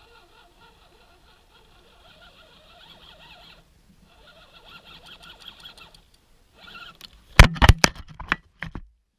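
Small electric motor and gears of a 1/10-scale RC crawler whining faintly in spurts, cutting out twice, then a quick run of about six loud knocks near the end.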